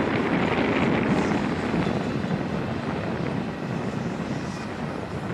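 Double-stack intermodal freight train's well cars rolling past on the rails: a steady rumble of wheels and cars that eases slightly toward the end.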